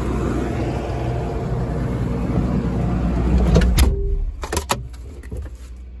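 John Deere skid loader's engine running close by, rising slightly and then stopping about four seconds in. A few knocks and clicks come as it cuts out, and a fainter steady hum carries on.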